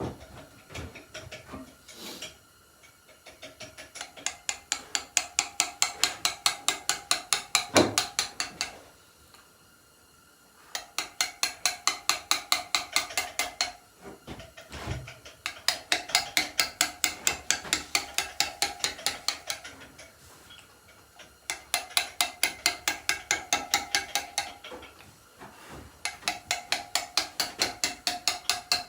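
Steel chisel tapped rapidly into a stone headstone, cutting lettering: runs of quick, evenly spaced strikes, about seven a second, each run lasting a few seconds before a short pause, five runs in all.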